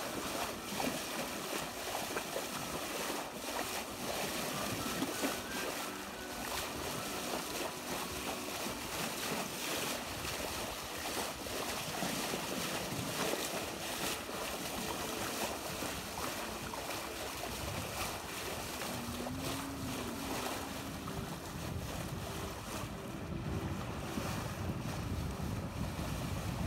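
Water rushing and splashing along a sailboat's hull as it sails under way, with wind blowing across the microphone.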